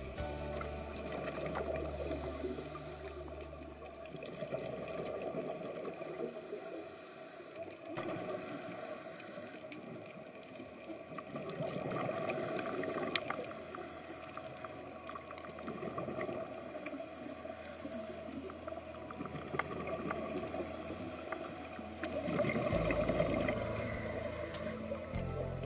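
Humpback whale song heard underwater: shifting, wavering moans and calls in the background, with a low rumble rising near the end.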